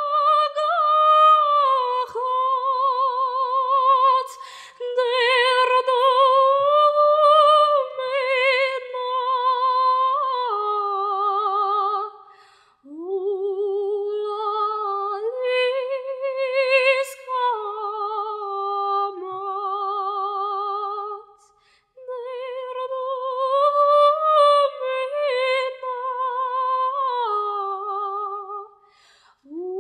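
A female solo voice singing unaccompanied in a high register with strong vibrato, in long held phrases broken by brief breaths about 13, 21 and 29 seconds in.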